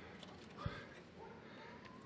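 A single dull knock about a third of the way in, over faint handling noise, as drum-brake parts are worked by hand.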